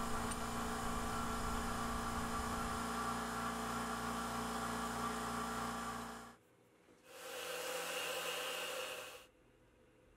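CNC milling machine running: a steady machine hum made of several held tones, with a slow pulsing underneath from about three seconds in, that cuts off suddenly after about six seconds. After a short silence comes about two seconds of noisier machine sound with a hiss, as the mill cuts a steel block.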